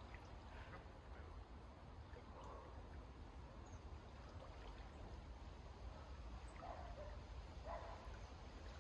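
Faint outdoor ambience at near-silence level: a steady low wind rumble on the microphone, with a few faint, brief distant sounds in the middle and near the end.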